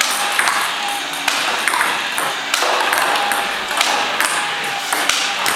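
Table tennis ball clicking off the table and the paddle in a quick, even rally against a ball-throwing robot, about two to three sharp clicks a second.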